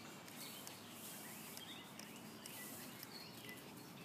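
Faint birds chirping: many short, quick notes sliding up and down, over a steady background hiss.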